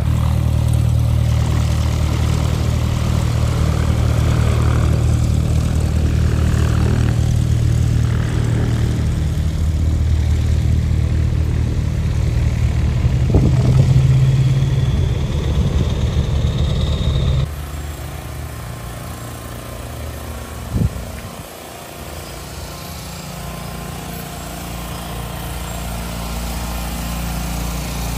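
Light propeller airplane's piston engine running steadily, growing louder around thirteen to fourteen seconds in. About seventeen seconds in the sound drops suddenly to a quieter engine hum, with a single knock a few seconds later.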